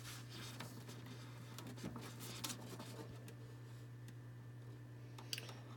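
Steady low hum with a few faint taps and clicks of eggs being handled and turned against a candling light.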